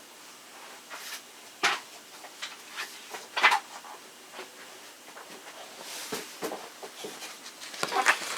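Scattered light knocks, clicks and rustles of objects being handled, while a sheet of copy paper is fetched.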